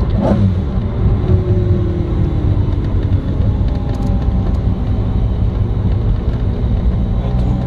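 McLaren F1's BMW V12 heard from inside the cabin, running steadily at light throttle while cruising, along with road noise.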